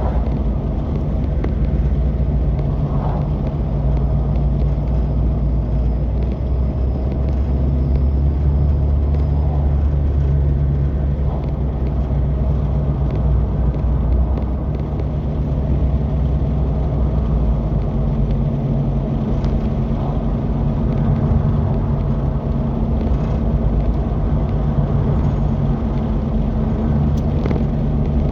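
Polaris Xpedition side-by-side UTV's engine running steadily under way, with a low rumble. Its tone shifts a little about two-thirds of the way through.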